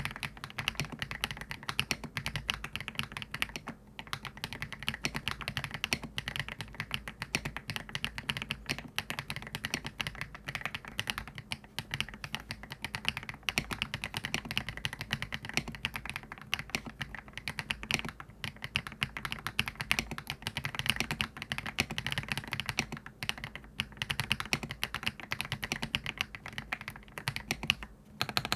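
Fast, continuous typing on an Aula F87 Pro foam-packed tenkeyless mechanical keyboard fitted with factory-lubed HMX Hibiscus linear switches, a dense run of keystrokes with brief pauses about four seconds in and near the end.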